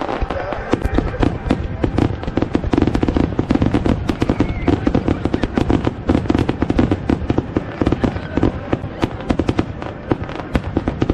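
Fireworks display: a dense, rapid run of bangs and crackles from shells bursting in quick succession, with no break.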